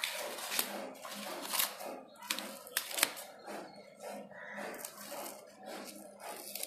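Crinkling, scratchy rustles and tearing of protective packing wrap being pulled and peeled off a new bicycle's frame tubes by hand, in an irregular run of crackles.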